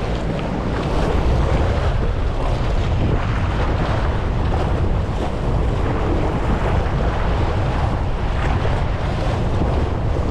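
Sea waves washing and splashing against a rock breakwater, under steady wind buffeting the microphone with a low rumble.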